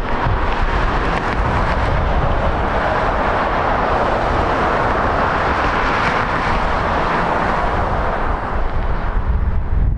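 Jet engine noise, a steady rushing sound that swells toward the middle and eases near the end, over a low rumble of wind on the microphone.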